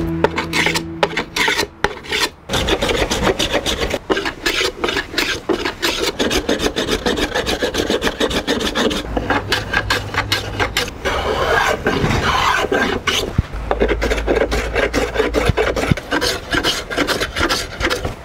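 Hand plane shaving the edge of an old oak frame, then a sanding block rubbed back and forth along the wood, a long run of quick rasping strokes.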